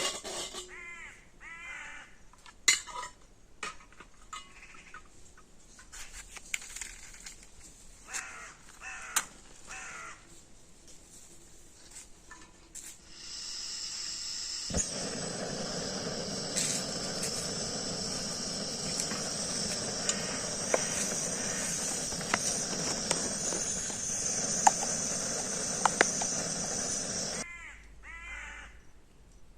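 A bird cawing now and then, crow-like. About halfway in, a loud steady hissing noise starts suddenly, runs for about twelve seconds and stops abruptly.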